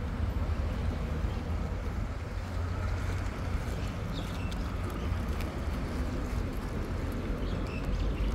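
Steady low rumble of wind buffeting a phone's microphone outdoors on a street, with a few faint ticks, likely footsteps on asphalt, scattered through it.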